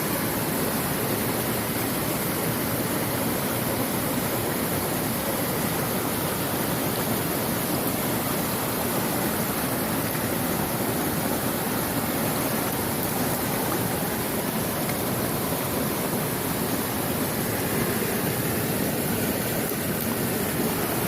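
Mountain stream water rushing steadily over rocks, an even, constant rush.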